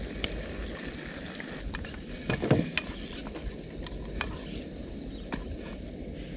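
Small metal clicks and taps from cooking eggs in a pan on a camping stove, with one louder clatter about two and a half seconds in, over a steady low rumble.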